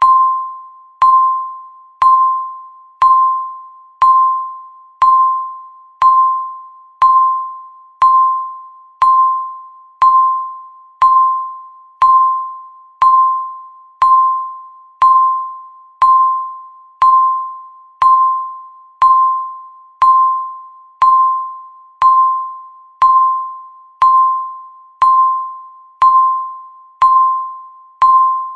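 Electronic countdown timer beeping once a second: a short tone of about 1 kHz that starts sharply and fades, repeated evenly with each second that passes.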